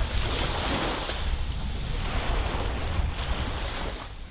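Small waves washing up on a sandy beach, rising and falling in slow swells, with wind rumbling on the microphone.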